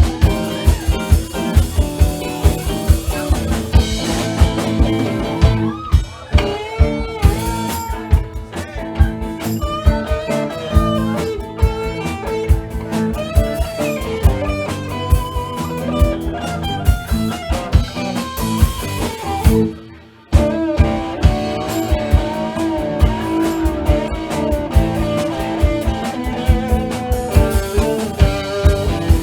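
Live band playing a blues-flavoured instrumental passage: a guitar melody with bent notes over a steady drum-kit beat and sustained lower accompaniment, with a short break, almost silent for half a second, about two-thirds of the way through before the band comes back in.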